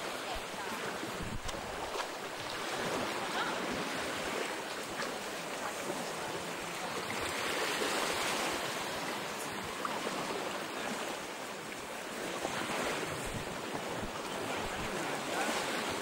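Sea surf washing onto a sandy beach, the noise swelling and easing every few seconds as waves break, with wind gusting on the microphone.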